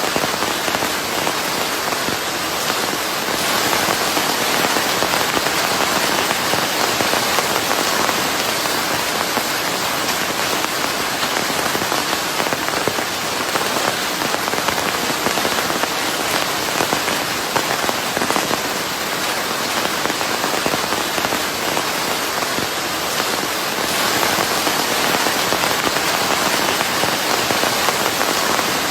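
Steady rain: a dense, even patter of countless drops on a surface, layered with white noise. Its level swells gently now and then.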